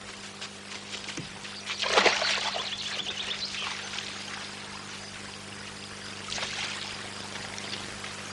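Shallow stream running over rocks, with splashes from feet wading through it, the loudest about two seconds in and another near six and a half seconds.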